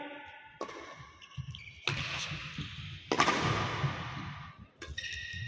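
Badminton rally: racquets striking the shuttlecock four times, sharp cracks about a second and a half apart, each trailed by a brief echo.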